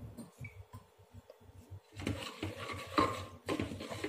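A spoon scraping and knocking against a pressure cooker as rice, peas and spices are stirred through with a little water. The strokes start about halfway in and come two or three a second.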